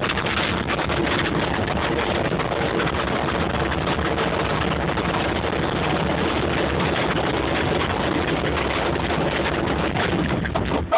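Continuous rumbling and rattling of a bin rolling and bumping down a hill, heard from inside the bin, with many small knocks.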